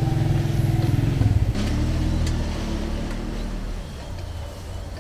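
A motor vehicle's engine running close by, dropping in pitch about a second and a half in and fading over the next couple of seconds as it moves off. A couple of sharp clicks come through it.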